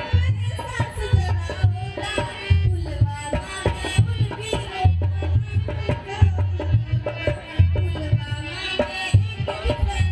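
Hindi patriotic song: a sung vocal melody over a rhythmic tabla-style hand-drum beat, playing without a break.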